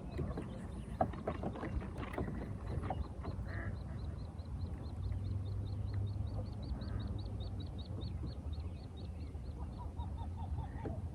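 A bird calling a long, even series of short high chirps, about four a second, growing louder in the middle and then fading, over a low steady hum.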